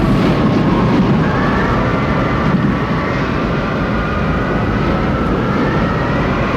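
Loud, steady roar of tornado wind with a faint howling whine over it.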